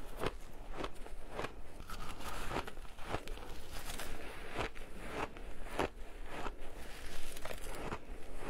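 Shaved ice crunching as it is bitten and chewed close to the microphone: an irregular run of crisp crunches, about two to three a second.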